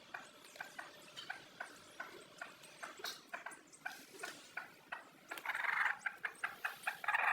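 Chickens calling in short, quick notes, about two or three a second, growing louder about five seconds in.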